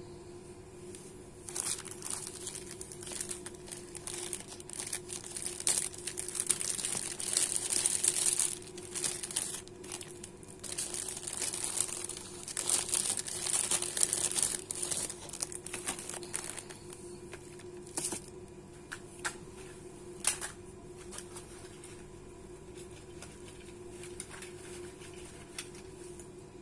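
Clear plastic bags crinkling and rustling as they are handled and filled, in dense bursts for the first fifteen seconds or so. Then come a few single sharp crackles and a quieter stretch.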